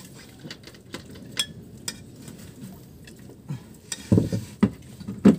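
A metal spoon scraping and clinking in a frying pan of stew and against a metal plate as food is dished onto rice, with a few louder knocks near the end.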